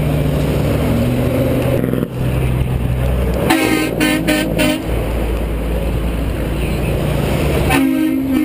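Semi tractor-trailer passing close by, its diesel engine and tyres running loud. Its air horn sounds a quick series of short blasts about three and a half seconds in, then another blast near the end.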